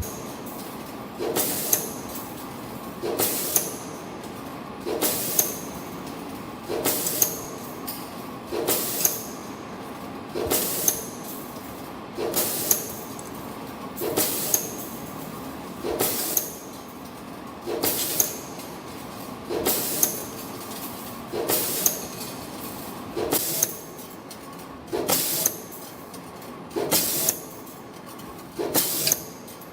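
CNC wave-spring making machine forming 0.81 x 3.0 mm flat wire into wave springs, running in a steady production cycle: a short, sharp burst of noise about every 1.8 seconds over a steady tone from the running machine.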